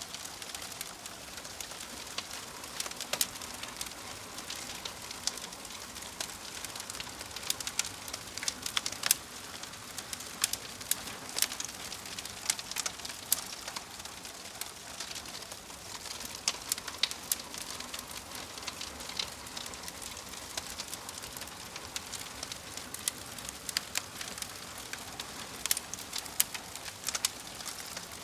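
Wood fire burning in a fireplace: steady hiss of the flames with irregular sharp crackles and pops from the burning logs.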